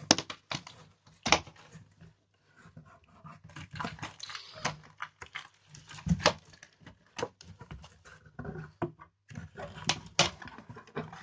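Plastic wrap crinkling and cardboard scraping as a shrink-wrapped flat item is worked out of a cardboard box, with irregular sharp knocks and clicks. The loudest come near the start, about six seconds in and near the end.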